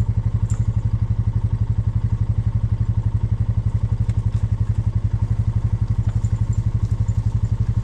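Tractor engine idling, loud and steady with a fast, even pulsing beat.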